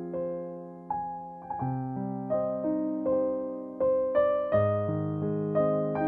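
Background piano music: single notes and chords struck about once a second and left to ring and fade.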